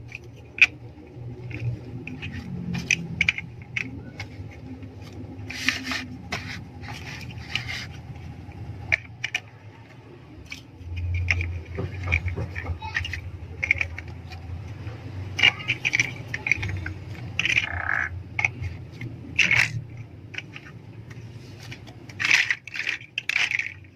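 Plastic LEGO bricks being handled and snapped together: many sharp, irregular clicks with short scraping rattles between them.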